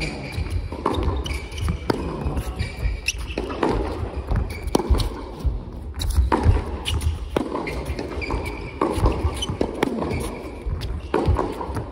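Tennis rally on an indoor court: racket strikes and ball bounces roughly every second, with shoes squeaking on the court surface, echoing in a large hall.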